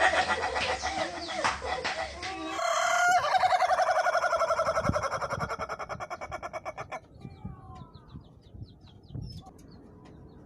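Roosters crowing: one long crow ends about two seconds in, then a second long crow starts about three seconds in and fades out by around seven seconds, followed by fainter short calls.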